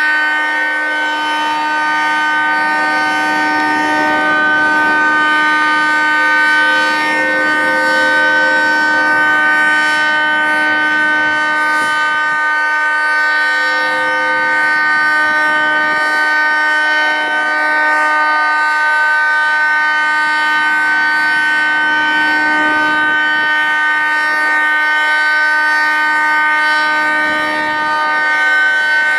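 Federal Signal 3T22 three-tone outdoor warning siren sounding the steady alert signal: a loud, continuous chord held at one pitch, its loudness swelling and fading gently as the rotating head turns.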